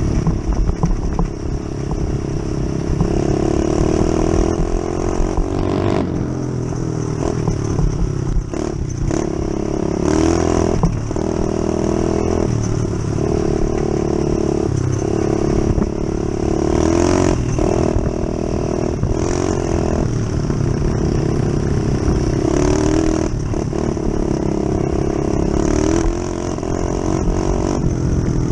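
Onboard sound of a trail motorcycle engine riding a dirt track, its pitch stepping up and easing off over and over as the throttle is opened and closed. Clattering from bumps in the track is mixed in.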